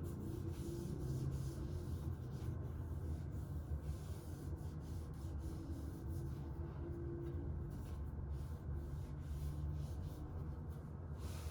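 A cleaning wipe rubbing over a MacBook in repeated uneven strokes, over a steady low hum.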